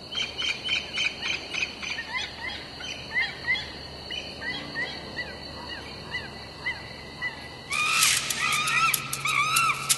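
Bird-like animal calls: quick repeated chirps and short upward-sweeping whistles over a steady high whine. About eight seconds in it gets louder and busier, with arched calls and a rapid run of sharp clicks.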